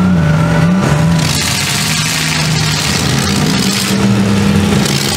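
Engines of full-size demolition derby cars running and revving on a dirt track, their pitch rising and falling.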